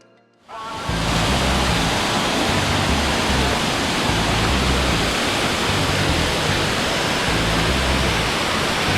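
Steady rush of water pouring down a rocky waterfall cascade, heard close up. It cuts in suddenly about half a second in.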